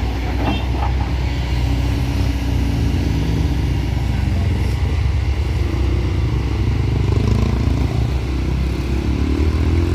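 Heavy truck's diesel engine labouring steadily at low revs on a steep climb, its pitch rising near the end.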